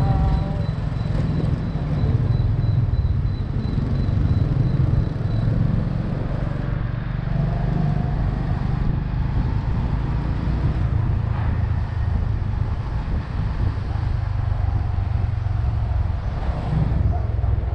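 Steady low rumble of a motorbike riding along a city street, heard from the rider's seat, with the surrounding motorbike traffic mixed in.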